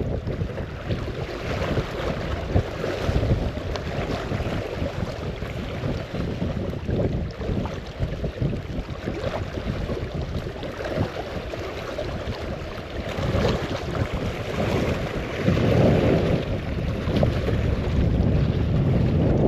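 Gusty wind buffeting the microphone, a rough low rumble that swells in stronger gusts late on.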